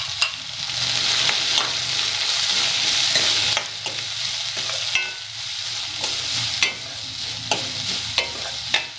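Freshly added chopped onions sizzling in hot oil in a stainless steel kadai, stirred with a steel ladle that scrapes and clicks against the pan. The sizzle is loudest for the first few seconds, then eases off.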